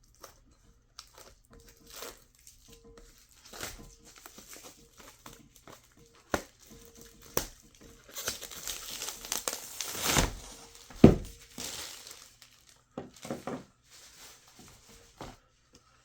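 Knife packaging being handled and unwrapped: crinkling and tearing of wrapping with scattered knocks. It grows louder and busier about eight seconds in and ends with a sharp knock a few seconds later.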